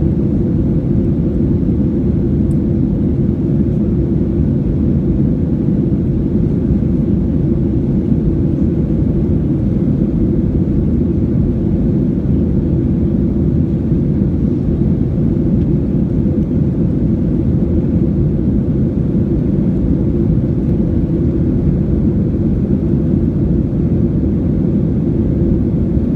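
Steady low rumble of a Boeing 737-800's CFM56 jet engines and airflow, heard inside the passenger cabin in flight.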